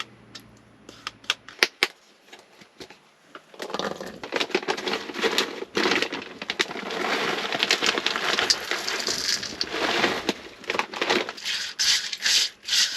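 Dry granola crackling and rattling as it is tipped from its plastic bag, with scattered clicks and taps of handling before and after.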